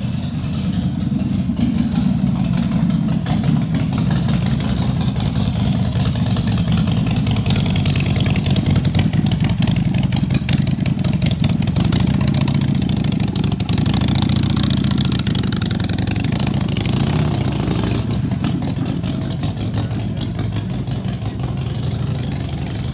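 Motorcycle engine idling steadily and loud, with slight swells in speed.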